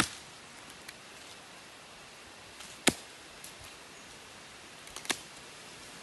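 Sharpened axe chopping into a small tree stump at ground level: two sharp strikes about two seconds apart, the first the louder.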